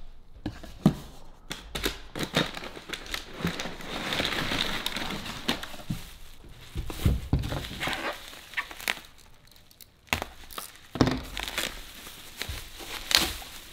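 Plastic bubble wrap and packing material crinkling and rustling as a wrapped part is pulled from a cardboard box and handled, with scattered clicks and knocks.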